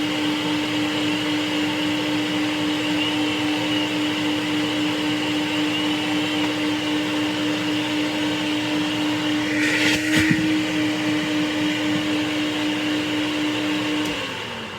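Three-stage central vacuum motor running steadily at full speed on new carbon brushes while its armature commutator is cleaned with armature-cleaning chalk, with a brief scratchy burst about ten seconds in. Near the end the motor is switched off and winds down, its hum falling in pitch and fading.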